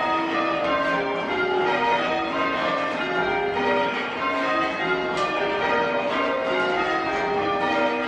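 Church bells being change rung on a ring of six (tenor 7-3-11 cwt, in B flat), the bells struck one after another in a steady even rhythm, their tones overlapping.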